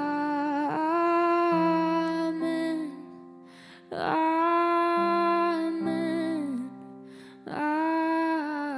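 Slow worship music: long, held wordless vocal notes in three phrases, like humming, over soft sustained keyboard chords.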